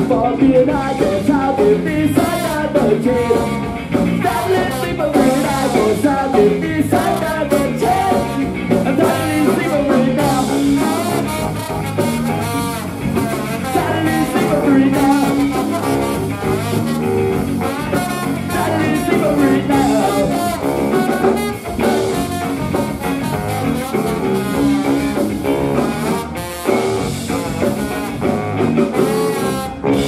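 Live ska-punk band playing: baritone saxophone and trombone horn lines over electric guitars, bass and drums, loud and continuous.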